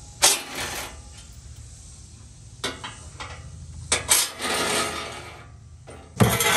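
Metallic clanks and short rattles from hand tools and bolts being worked on the underside skid plate of a Ford Bronco, a few separate knocks with a loud clank near the end.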